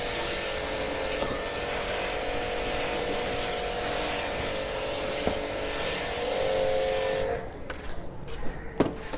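Electric pressure washer running, its water jet spraying onto a scooter's floorboard and plastic panels: a steady hiss of spray over the hum of the pump motor. It cuts off about seven seconds in, followed by a click.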